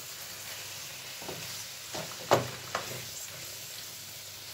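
Sliced mushrooms and diced chicken breast sizzling in oil in a frying pan as a wooden spoon stirs them, with a few knocks of the spoon against the pan around the middle, the loudest about two and a half seconds in. The mushrooms have just gone in raw and been lightly salted to soften.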